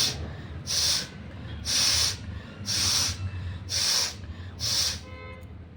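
A person breathing hard through the nose: six short, forceful hissing blows or sniffs in a row, about one a second. A faint brief whistle follows near the end.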